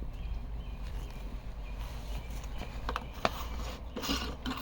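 A few light clicks and knocks of hard parts being handled, over a low steady hum.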